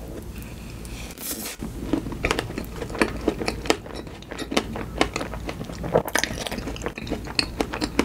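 Close-miked chewing of a mouthful of soft strawberry rare cheesecake with a crumble topping: many irregular short wet clicks and smacks from the mouth.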